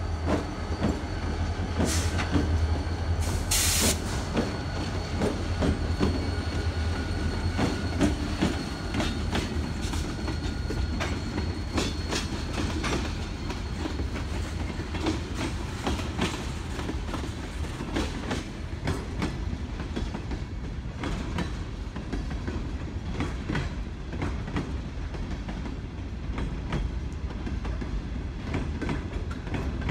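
Freight train rolling along the track: a steady low rumble with wheels clicking over rail joints, and a faint thin wheel squeal during roughly the first dozen seconds.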